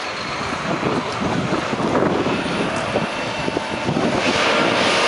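Semi truck's diesel engine running under load, the noise getting gradually louder.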